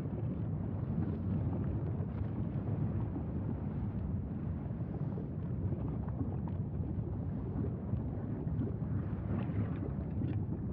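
Steady low rumble from Mauna Loa's lava-fountaining fissure vent mixed with wind on the microphone, with a few faint crackles near the end.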